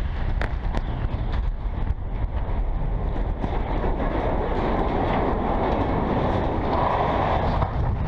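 Steady rumble of a steel-lattice water tower toppling after explosive charges have cut its legs, with a few sharp clicks of flying debris in the first second. The rumble swells briefly near the end as the tower comes down.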